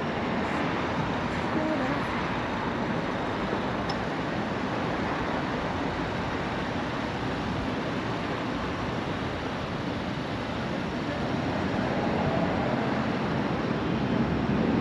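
Steady rushing street ambience with no distinct events, like wind on the microphone mixed with traffic noise.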